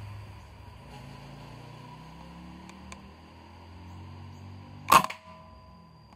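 A single shot from a PCP air rifle about five seconds in: one sharp report with a brief ring after it, over a low steady hum.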